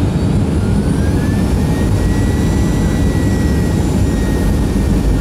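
Cabin noise inside a Boeing 737-300 on approach: the steady low rumble of its CFM56 jet engines and the airflow, with a faint thin whine that rises slightly about a second in and then holds.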